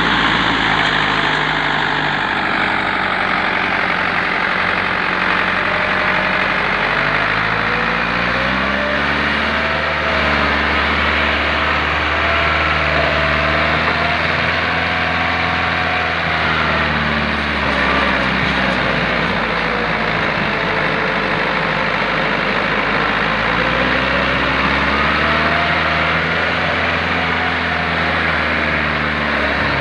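A Massey Ferguson MF 265 tractor's three-cylinder diesel engine runs hard under load, hauling a heavily loaded soil trolley through soft dirt. Its engine speed rises and falls several times as it strains.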